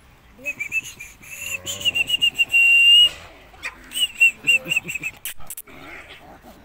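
Puppy squealing and yelping in a series of high-pitched cries, one held longer in the middle, while a bigger dog wrestles it to the ground. A couple of sharp clicks about five seconds in.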